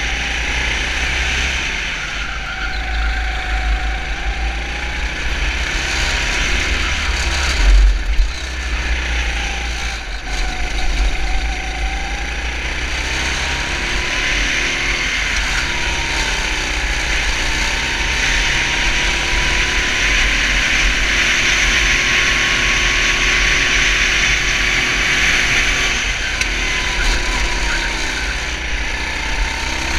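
Engine of a 250 cc four-stroke racing kart heard from onboard, its note rising and falling again and again as the kart speeds up and slows for corners. A strong low rumble runs underneath, and there is a brief louder knock about eight seconds in.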